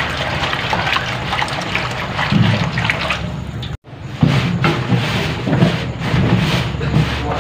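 Hands mixing and kneading wet bread dough of flour and water in a stainless steel trough, with continuous watery squishing and sloshing. The sound drops out for an instant a little past the middle.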